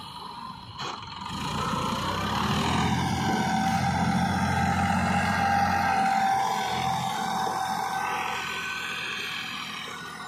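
Massey Ferguson tractor's diesel engine running under load as it drives a rotavator through rice stubble, with a steady whine over it. It grows louder as the tractor comes close, from about two seconds in, then fades as it moves away.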